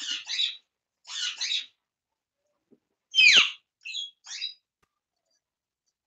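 Parakeets bathing in a steel dish of water: two short bursts of splashing and flapping, then a loud harsh squawk that falls in pitch about three seconds in, followed by two short chirps.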